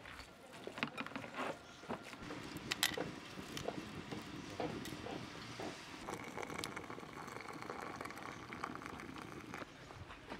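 Quiet outdoor food preparation: scattered soft clicks, taps and handling noises of hands and kitchenware. From about six seconds in, a faint steady hiss joins them.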